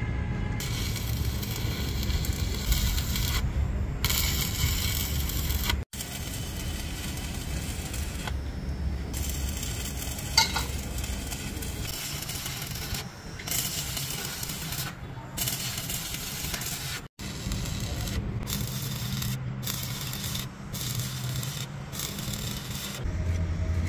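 Arc welding at a bulldozer final drive hub: the welding arc crackles and sizzles, starting and stopping in runs of a second or two as the rod is struck and broken off, over a steady low rumble.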